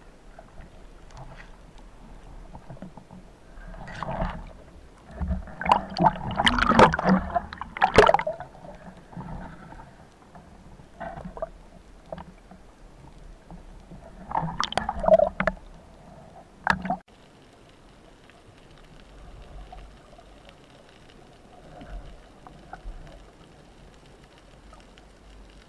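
Water gurgling and splashing in irregular bursts, with a couple of sharp clicks, from a spearfishing dive.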